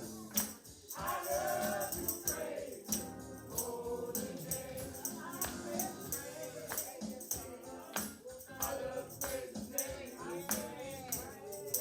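A congregation singing a gospel praise song together, with a tambourine struck and shaken on a steady beat.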